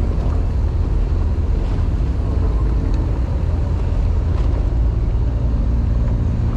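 Fishing boat's engine running with a steady low rumble, with wind noise on the microphone.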